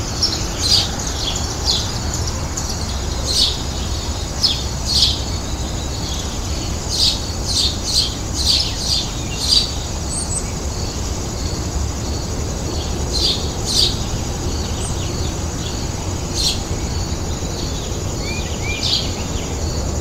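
Birds chirping: short, sharp chirps in scattered clusters over a steady low rumble, with a rapid run of arching calls starting near the end.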